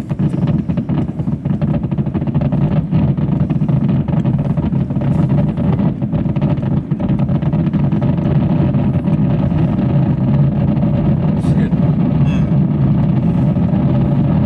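Fireworks finale barrage heard from inside a car: a dense, unbroken rumble of rapid booms and crackles.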